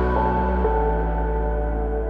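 Background music of sustained, held notes fading out, growing duller and quieter as it fades.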